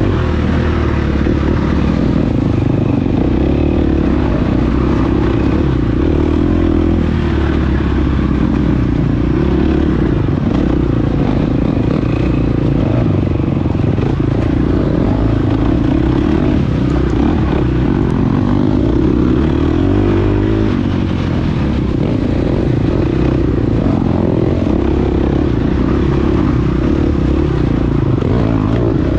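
KTM 350 XC-F dirt bike's single-cylinder four-stroke engine running under load as it is ridden hard, the revs rising and falling, with clatter from the bike over rough ground. The engine eases off briefly about two-thirds of the way through.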